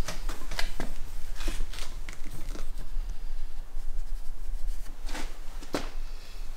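Scattered light clicks and taps of engine parts being handled on a workbench during a jet-ski crankshaft seal change, with two sharper clicks about five seconds in.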